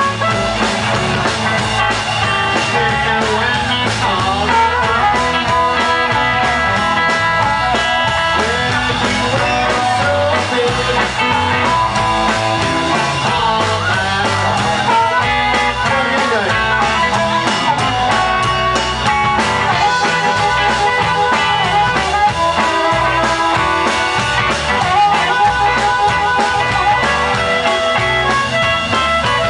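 Live blues band playing: a harmonica cupped to a microphone leads with bending, wailing notes over electric guitars and a drum kit keeping a steady beat.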